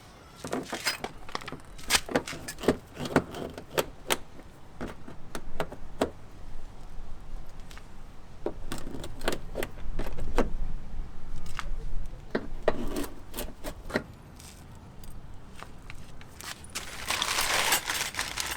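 Phillips screwdriver backing out the screws that hold the wheel-well liner, with many sharp metallic clicks, clinks and rattles and a brief scrape near the end.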